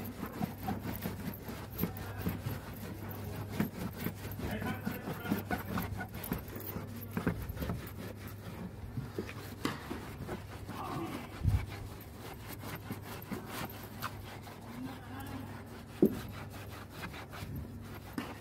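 Cloth scrubbing and wiping back and forth over a car's plastic interior door panel, a fast, irregular rubbing, with a couple of sharper knocks against the panel in the second half.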